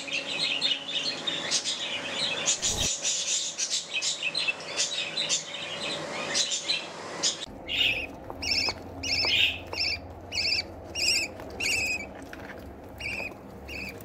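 Budgerigars chirping and chattering continuously. About seven and a half seconds in, the sound changes to a steady run of short, repeated chirps, about two a second, over a low hum.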